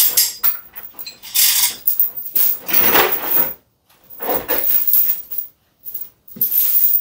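Steel chain rattling and clinking in about six separate bursts as it is pulled loose from around a bottle-jack press.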